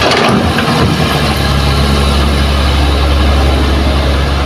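Kobelco hydraulic excavator's diesel engine working hard as the machine lifts a full bucket of soil: a heavy, steady low drone that settles in about a second in, after a short burst of noise at the very start.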